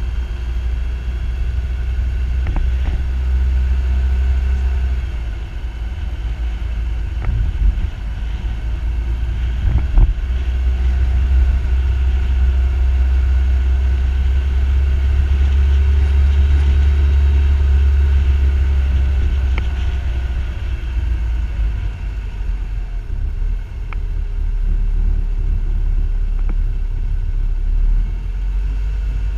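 Car driving along a street, heard through a camera mounted on the outside of the car: a steady low rumble of wind and road noise that swells and eases, with a couple of sharp knocks.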